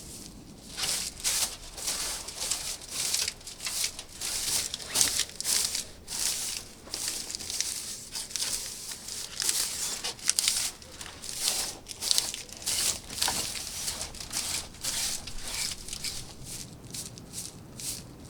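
Irregular crunching and crinkling, a few short noises a second, starting about a second in and going on throughout.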